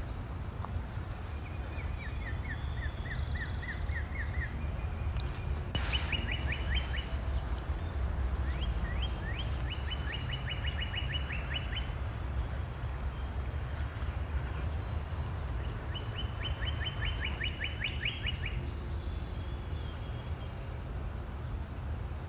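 Songbirds singing rapid trills of short repeated notes, four times, over a steady low rumble. A single sharp click comes about six seconds in.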